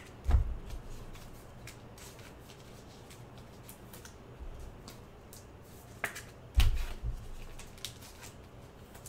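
Trading cards being handled on a table: sparse light clicks and flicks of card stock, with a few short dull knocks, the loudest just after the start and about six and a half seconds in.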